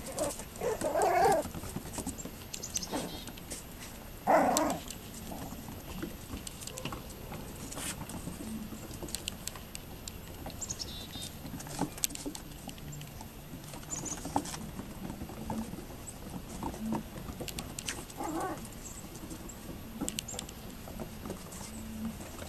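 Yorkiepoo puppies playing on wooden deck boards: claws clicking and paws pattering as they scuffle and run, with two louder short puppy cries, about a second in and again around four and a half seconds in.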